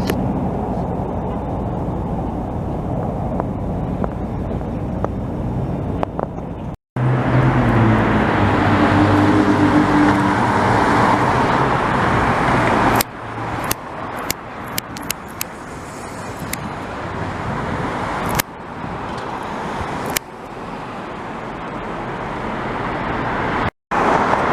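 Steady outdoor traffic noise. About seven seconds in, a louder engine passes for several seconds and then drops away, followed by scattered knocks. The sound cuts out briefly twice.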